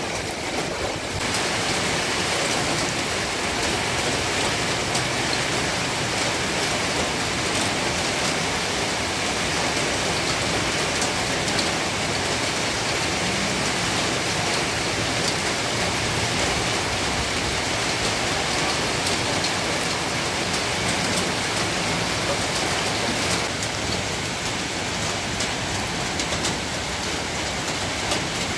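Heavy rain pouring down steadily: a dense hiss flecked with the ticks of countless drops, growing a little louder about a second in.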